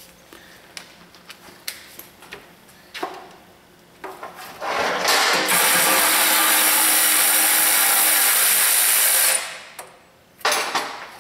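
Power ratchet running steadily for about five seconds, spinning out a 10 mm heat-shield bolt on the exhaust manifold, then cutting off. A few light clicks of tool handling come before and after it.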